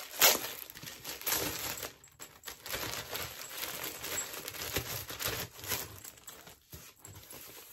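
Plastic mailer bag ripped open sharply just after the start, followed by irregular crinkling and rustling of plastic packaging as the wrapped handbag is pulled out and handled.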